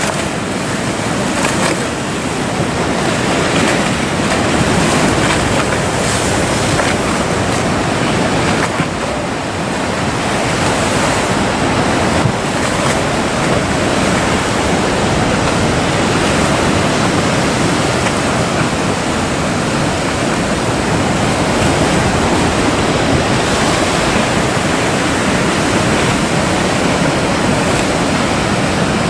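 Heavy surf: waves breaking and churning steadily in rough sea, with wind on the microphone.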